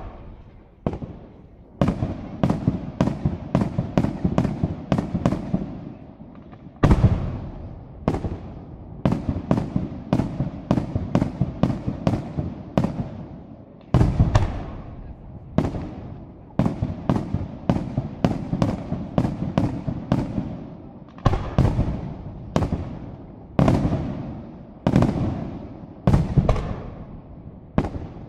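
Aerial firework shells bursting one after another. Each bursts with a sharp bang and a rumbling echo that dies away. The bursts come in a quick run a couple of seconds in, then settle to about one a second.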